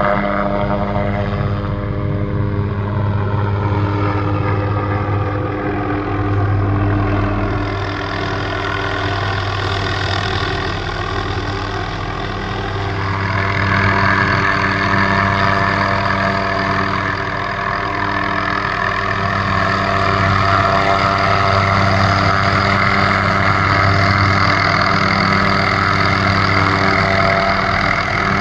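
Helicopter running steadily at work, its engine and rotor drone continuous, with higher tones sliding downward over the first several seconds and a louder, harsher sound from about halfway through.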